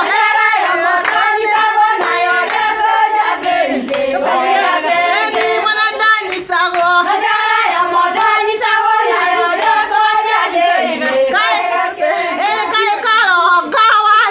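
Several high voices singing a song together, with scattered hand claps.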